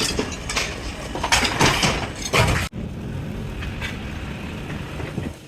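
Heavy workshop machinery noise: a run of irregular loud knocks and clatter, then after an abrupt cut about halfway a steadier mechanical rumble with a few lighter knocks.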